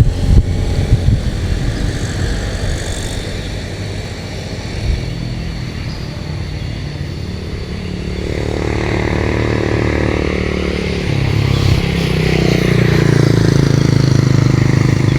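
Road traffic passing at close range: vehicle engines and tyre noise, with an engine growing louder over the second half as a vehicle approaches.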